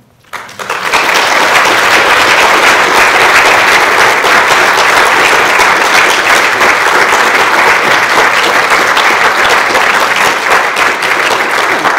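Audience applauding: the clapping starts about half a second in, builds within a second to a loud, steady applause, and eases slightly near the end.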